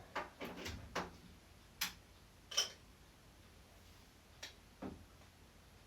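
Scattered light clicks and knocks, about eight at irregular intervals, from hands handling a Hoover Junior upright vacuum cleaner; the sharpest comes a little over two and a half seconds in.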